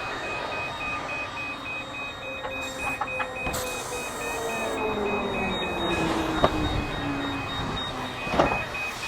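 Airport tarmac noise: a fast, even beeping tone over a steady whine, while another whine falls slowly in pitch over several seconds. A sharp knock sounds about six and a half seconds in.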